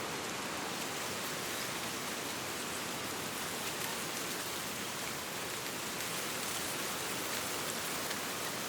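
Wind rustling dry autumn leaves in trees: a steady, even hiss with fine, faint crackling of leaves throughout.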